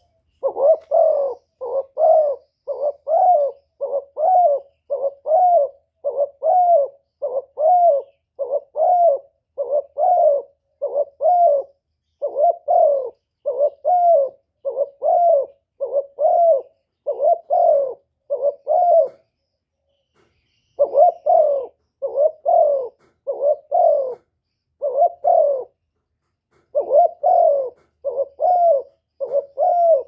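Spotted dove cooing: short, low coos repeated quickly, about three every two seconds, in long runs broken by two brief pauses. It is the call of a female spotted dove calling to a male, used as a lure call.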